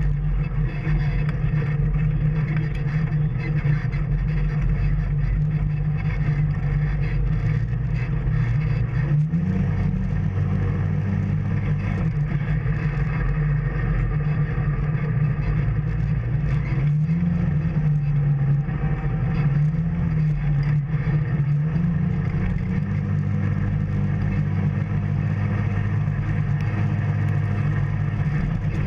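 An off-road vehicle's engine running continuously under throttle on a trail. The pitch steps up about nine seconds in, rises and falls a few times in the middle, and climbs again about two-thirds of the way through.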